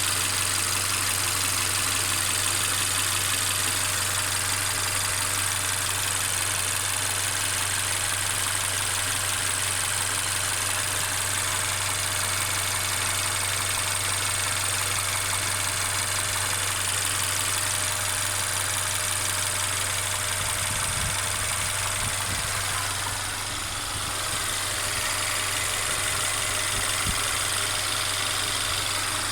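Mercedes-Benz CLA 250's turbocharged four-cylinder engine running steadily, carrying the continuous rattling noise the owner is trying to trace. A few low knocks come about two-thirds of the way through.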